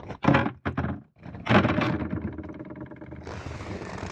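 Handling sounds from opening a sailboat's under-settee storage locker: a few knocks, then a longer stretch of scraping and rubbing, then a steady hiss near the end.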